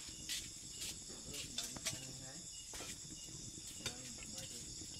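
Crickets chirring steadily in a high-pitched chorus. Scattered sharp crackles sound over it, the loudest at about a third of a second, near two seconds and near four seconds in.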